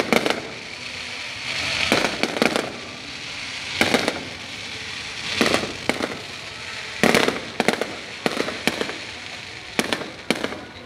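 Fireworks going off, a sharp bang every second or two, some in quick doubles or short clusters, with a hissing, crackling wash between the bangs.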